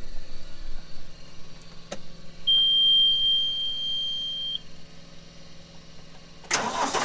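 A click as the key is turned, then a single steady high beep lasting about two seconds, then near the end the John Deere 5075M tractor's diesel engine cranks and fires. The engine is being started to pump fluid into a freshly changed hydraulic filter.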